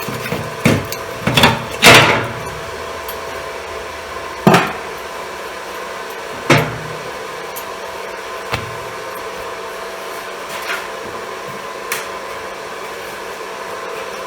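A series of irregular sharp knocks and clunks, the loudest about two seconds in, then fewer and farther apart. They sound over the steady hum of a welding inverter left switched on.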